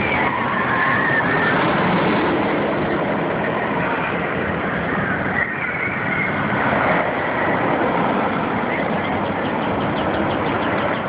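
A steady, loud mechanical rumble, with faint voices in the background.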